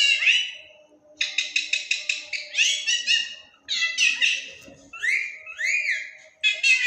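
Pet parrot calling: a quick run of repeated chirps, then whistled notes that slide upward and arch, in several separate bouts with short pauses between them.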